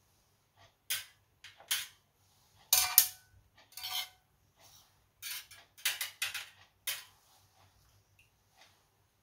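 Metal tongs and a spoon clinking and scraping against a ceramic bowl and a wire rack as marinated squid strips are lifted out and laid on the rack. Short, irregular clinks, the loudest about three seconds in and again around six seconds.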